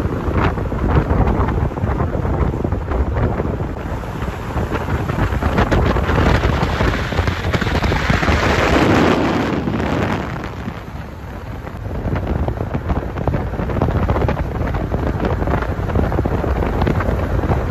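A car driving at speed on an open road, with wind rushing and buffeting over the microphone on top of engine and tyre noise. The rush swells for a couple of seconds around the middle.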